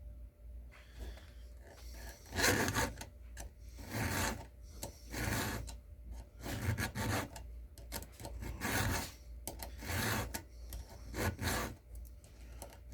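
A file rasping across a chainsaw chain's cutter teeth in repeated strokes, about one a second, starting about two seconds in: a dull chain being hand-sharpened.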